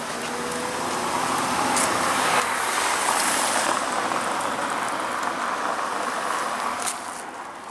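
A car passing on a brick-paved street: its tyre noise swells over the first couple of seconds, then slowly fades away.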